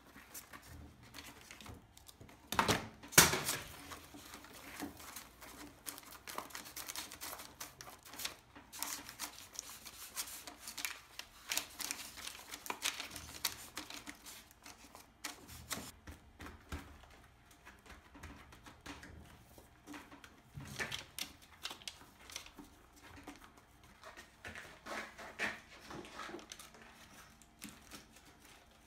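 Gloved hands packing and pressing damp, crumbly homemade refractory cement by hand around a paper-wrapped pipe form: a run of irregular soft taps, scrapes and rustles, with one louder knock about three seconds in.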